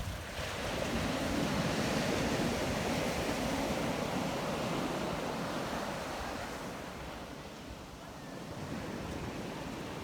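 Surf on a beach: a wave swells and breaks in the first couple of seconds, then washes out and eases off before the next one builds near the end, with wind buffeting the microphone.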